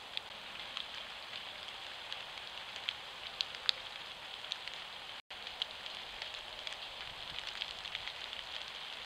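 Steady faint hiss with scattered light ticks and crackles, the rustle of an opossum walking over dry fallen leaves. The sound cuts out for a split second about five seconds in.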